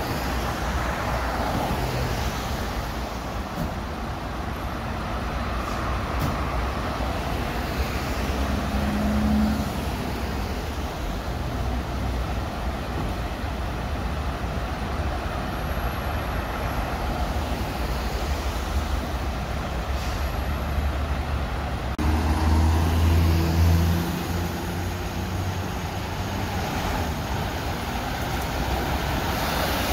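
Diesel engines of Scania fire engines running at the kerb, a steady low rumble with road traffic passing. About two thirds of the way in, a nearby engine gets louder and deeper for a couple of seconds, then settles back.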